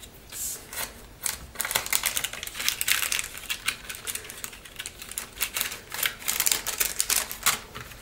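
Rapid, irregular clicking and rattling of small hard items being rummaged through in a plastic craft-supply box. The clicks grow dense from about a second and a half in, then go on more sparsely.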